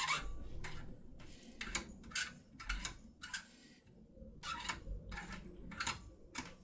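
Irregular light clicks and short scraping noises of a foil-impression lock pick being worked in and handled with a pin-tumbler lock cylinder.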